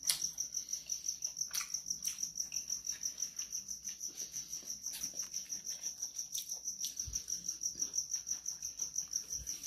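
A cricket chirping steadily in a fast, even, high-pitched pulse, with a few faint clicks and a couple of soft knocks.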